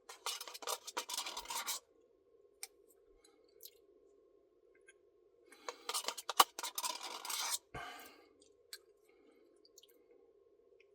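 Two bursts of scratchy rustling and scraping with sharp clicks: one in the first couple of seconds and a second, with one loud click, from about six to eight seconds in. A few isolated ticks fall between them.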